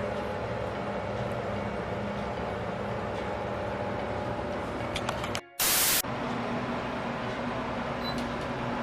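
Electric fan running with a steady whirring hiss and a low hum. About five and a half seconds in, the sound cuts out for a moment and then gives a loud burst of static for about half a second.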